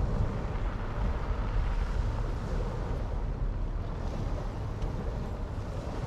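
Sea surf washing ashore in a steady, even wash, with wind rumbling on the microphone.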